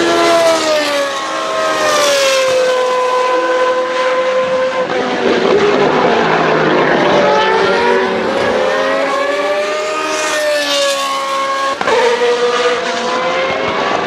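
Formula racing car's naturally aspirated V8 at high revs, the pitch rising and falling through gear changes as it brakes for and accelerates out of corners. There is a short sharp crack near the end.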